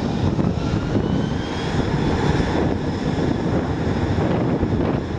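An Airbus A330-200's twin GE CF6-80E1 turbofan engines running as the airliner rolls along the runway. A steady low roar carries a whine that rises in pitch from about one to two and a half seconds in.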